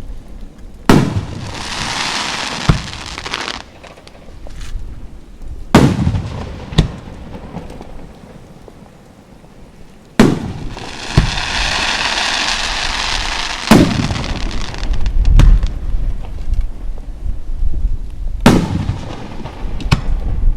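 Aerial firework shells bursting five times, each a sharp bang with a rumbling tail. After the first and third bursts comes a few seconds of dense crackling hiss from the shells' stars.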